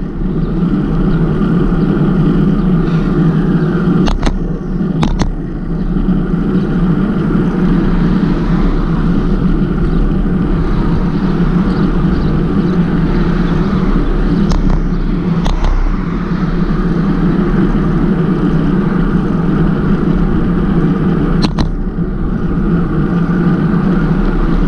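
Steady rumble of wind on the microphone and road noise while riding a bicycle, with a few sharp clicks.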